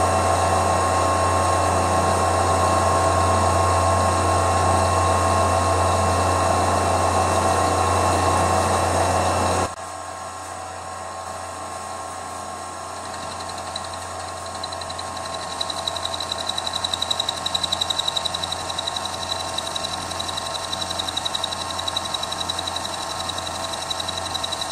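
Milling machine spindle running in low range, a loud steady hum with fixed tones. About ten seconds in it drops suddenly to a quieter run. An end mill, which is worn on its bottom cutting edge, then cuts flats on the fitting, adding an even pulsing and a high whine that grows from about thirteen seconds on.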